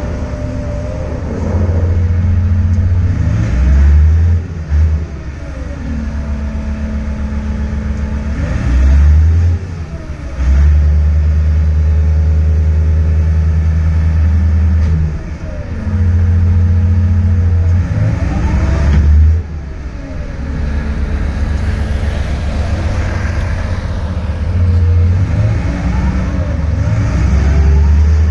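Komatsu HD605 rigid dump truck's diesel engine working as the truck drives and turns. The engine note rises and falls in repeated surges every few seconds.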